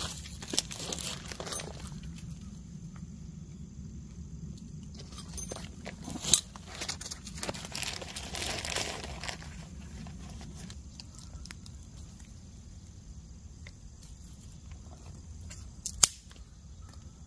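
Dry twigs being handled and laid onto a small kindling fire: rustling and crackling, with two sharp snaps, one about six seconds in and one near the end.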